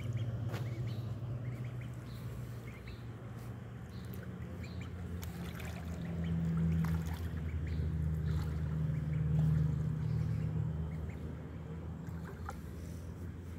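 White duckling splashing and bathing in a shallow muddy puddle, with faint high peeps, over a steady low engine hum that swells about halfway through.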